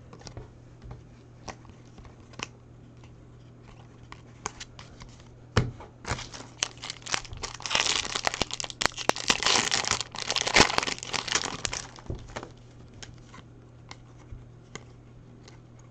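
Foil wrapper of a Topps Chrome trading-card pack crinkling and tearing as it is ripped open by hand, loudest in the middle. Before and after come scattered light clicks of cards being handled.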